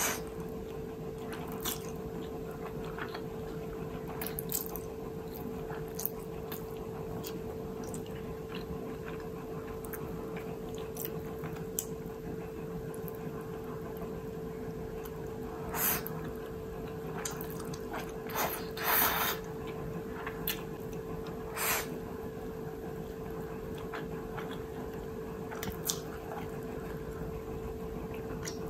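Close-up eating sounds of fried instant noodles (Indomie Mi Goreng) with egg: chewing and small mouth clicks, with a few louder slurps of noodles about 16, 19 and 22 seconds in. A steady faint hum lies underneath.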